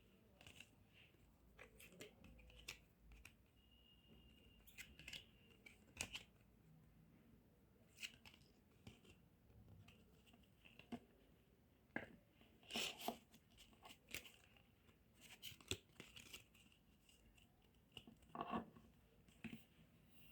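Quiet, scattered packaging-handling sounds: short clicks and brief rustles and tears of wrapping or packaging, a few of them louder.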